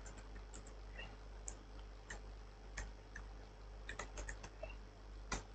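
Computer keyboard typing: faint, irregular key clicks, with a quick run of keystrokes about four seconds in and a sharper click near the end.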